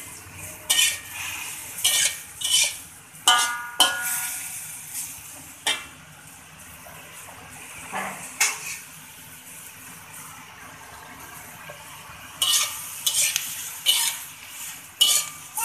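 A metal turner scraping and clanking against a metal wok as sawi greens and green chillies are stir-fried. The clanks come in clusters and ring briefly, over a steady low sizzle of frying, with a quieter stretch in the middle.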